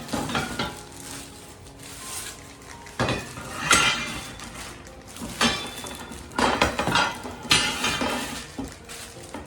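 Parts and hardware of a flat-pack shoe rack clattering and clinking as they are handled and set down, in about five short bursts.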